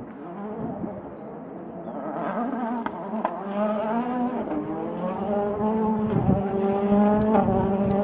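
Rally car approaching at speed, its engine getting steadily louder and climbing in pitch, with brief dips as it changes up through the gears.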